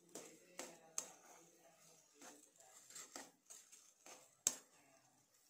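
A steel spatula scraping and knocking against a nonstick pan as a mashed potato filling is mixed. The knocks are faint and irregular, the sharpest about four and a half seconds in.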